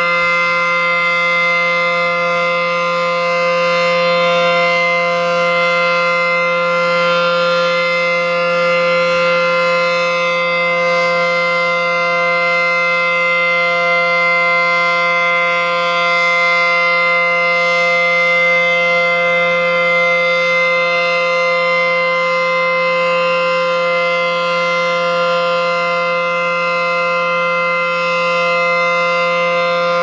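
ACA Screamer S-10 electromechanical civil defense siren sounding its one-minute steady alert: a loud, unwavering chord of several pitches held without rising or falling.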